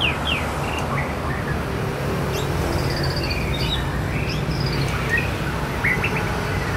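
Male white-rumped shama singing: scattered varied whistles, short trills and slurred notes, over a steady low hum.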